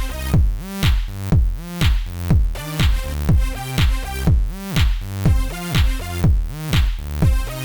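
Background electronic dance music with a steady beat, about two beats a second.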